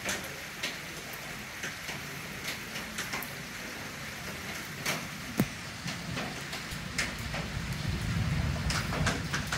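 Steady rain falling, with scattered single drops tapping among the even patter.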